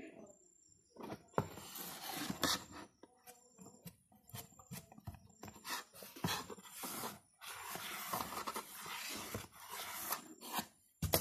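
Stiff white card being handled, slid and pressed by hand: irregular bursts of scraping and rustling with many small taps and clicks.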